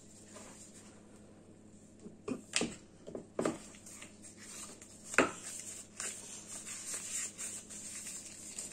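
A metal spoon scraping and knocking in a plastic mixing bowl of thick cookie dough, a few short, squeaky scrapes between about two and five seconds in, with gloved hands working the dough.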